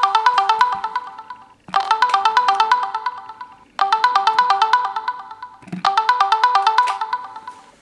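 Mobile phone ringtone: a short tune of quick, bright notes that restarts about every two seconds, each pass fading out before the next.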